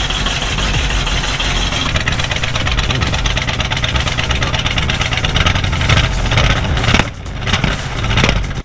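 1962 Chevrolet C10's 350 V8 running, with the throttle blipped several times in the last few seconds.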